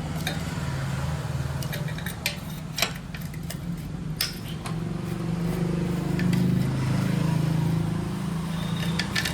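Scattered metallic clicks and clinks of hand tools on a motorcycle engine's clutch-side bolts and cover, over a steady low hum that grows a little louder about halfway through.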